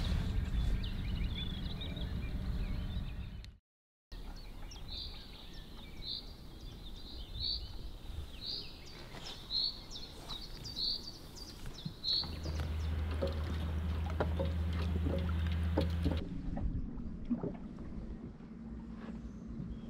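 Outdoor ambience on a small boat on a river: a bird repeats a short, high note about ten times over some seven seconds, with a low steady hum underneath for a few seconds in the second half. The sound drops out briefly near the start.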